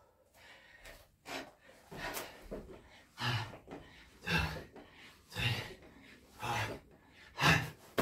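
A man breathing hard from exertion: a short, forceful exhale or gasp about once a second, in rhythm with his push-up reps during burpees.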